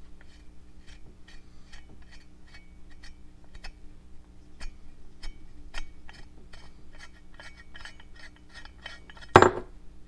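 Small metal parts clinking and tapping against each other and a hard surface in a run of light irregular clicks, with one much louder metal clank that rings briefly about nine seconds in.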